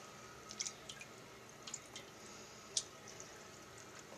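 A hand moving in toilet bowl water, making faint small splashes and drips: a few short ones in the first two seconds and a sharper one near three seconds in, over a steady hiss.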